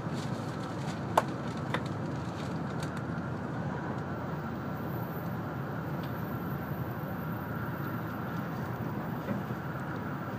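Steady running noise inside the cabin of an N700-series Shinkansen train travelling at speed, with a sharp click about a second in and a fainter one just after.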